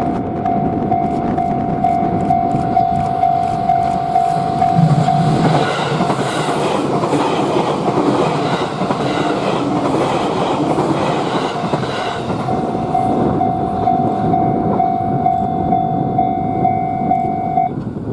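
Japanese level-crossing alarm ringing with a steady repeating electronic tone, while a JR East E653 series electric train passes from about five to about twelve seconds in, its wheels clattering in a rhythmic beat over the rail joints. The crossing alarm is heard alone again after the train has gone and stops near the end.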